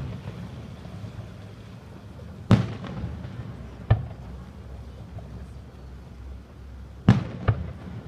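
Aerial firework shells bursting: four booms, the last two about half a second apart near the end.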